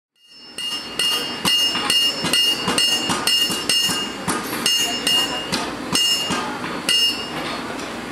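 Blacksmith's hammer striking hot steel on an anvil in a steady working rhythm, about two to three blows a second, each blow leaving a bright ring at the same pitch. The sound fades in over the first half-second.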